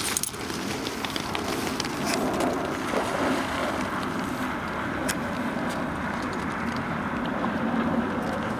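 Steady rushing outdoor noise, the rumble of wind on the microphone, with a few faint clicks, one about five seconds in.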